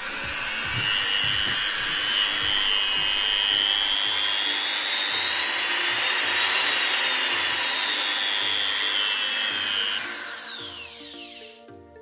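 Handheld electric mini grinder (rotary tool) running free with a high whine whose pitch rises and falls as its speed is changed. About ten seconds in it is switched off and the whine glides down as it spins to a stop.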